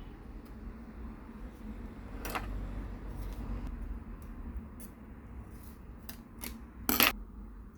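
Hand-work noises while double-sided adhesive tape is prepared for a phone's back cover: scattered small clicks and rubs, with a sharper click about two seconds in and the loudest sharp click near the end.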